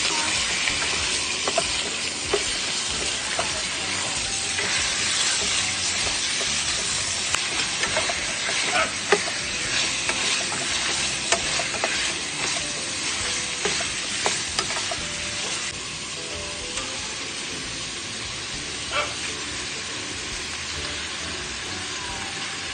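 Pork and chicken pieces sizzling in a stainless steel pot while a plastic slotted spatula stirs them, with scattered knocks and scrapes of the spatula against the pot. The sizzling eases a little about two-thirds through.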